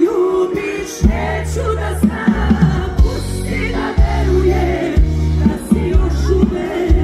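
Live pop-folk song at a concert: a woman sings into a microphone over an amplified band, with a heavy bass and a drum beat about once a second.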